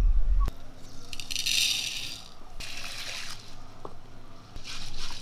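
Whole spices, black peppercorns, swished and rubbed by hand in water in a clay pot: three bursts of wet rattling and splashing. A low rumble stops with a click about half a second in.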